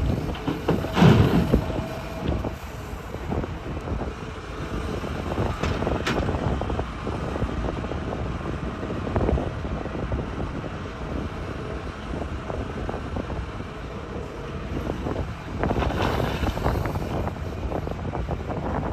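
Hitachi excavator digging rock: its diesel engine runs under load while the bucket scrapes and clatters against rock. The sound is loudest about a second in and again around sixteen seconds.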